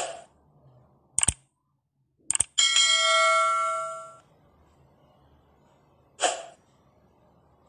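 Intro-animation sound effects: short sharp hits, then a bright bell-like chime held for about a second and a half before fading, and one more hit near the end.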